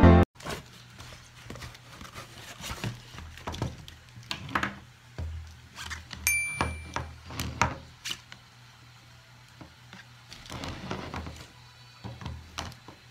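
Plastic stackable baskets being handled and separated by hand: scattered light knocks and clacks of plastic against plastic and against a wooden tabletop, with a low steady hum underneath.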